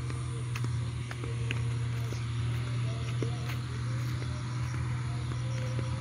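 Outdoor rural ambience: insects chirping over a steady low hum, with scattered light clicks.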